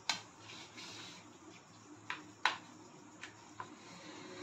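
Kitchen knife slicing through slabs of paneer and striking the plate beneath: a few sharp clicks, the loudest about two and a half seconds in.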